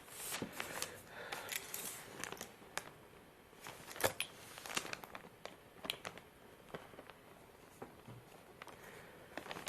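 Small clicks and rustling of shotgun parts being handled during a strip-down, with a sharper click about four seconds in.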